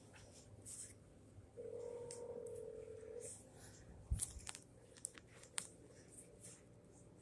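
Telephone ringback tone of an outgoing call, one ring of about two seconds, followed by a few sharp clicks and taps.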